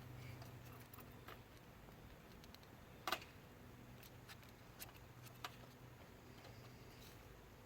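Near silence: a faint steady low hum with a few scattered light clicks, the loudest about three seconds in.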